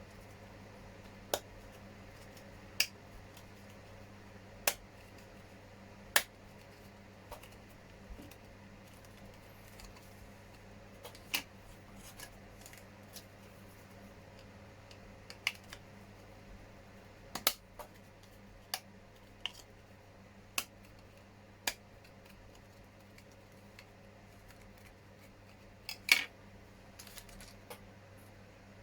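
Sharp clicks and snaps of small injection-moulded plastic body parts being handled and pressed together: a scattering of single clicks, about fifteen, spread irregularly, the loudest near the end.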